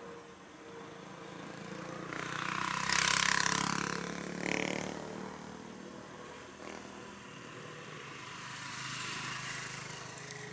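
Airbus A320 jet airliner passing low overhead on approach to land, its engine noise swelling to a peak about three seconds in, easing, then swelling again near the end over a steady low hum.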